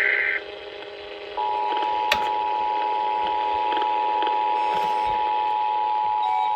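Emergency Alert System broadcast tones. A burst of digital SAME data ends just under half a second in. After a short gap, the EAS attention signal, a steady two-tone alarm, begins about a second and a half in and holds.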